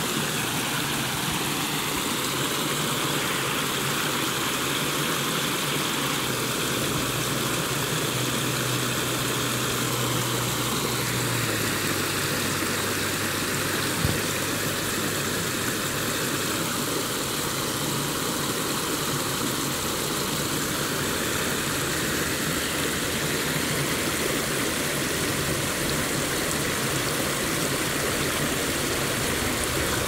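Creek water rushing and splashing over small rock ledges in a shallow riffle, a steady, even rush.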